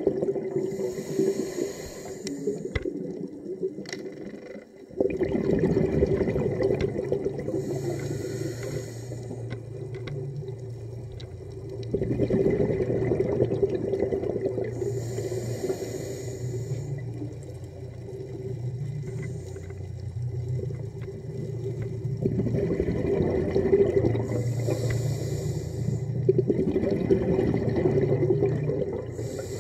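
Underwater sound of a diver breathing through a regulator: a short hiss every several seconds, with a bubbling rumble in between.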